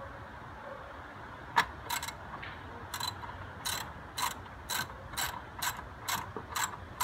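Ratchet wrench clicking as it loosens the throttle body nut. The clicks begin about a second and a half in and settle into a steady rhythm of roughly two a second.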